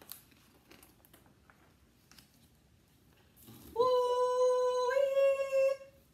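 A big picture-book page turned with faint paper rustles, then a woman's voice imitating a police siren: one long held "woooo" that steps up in pitch about a second after it starts.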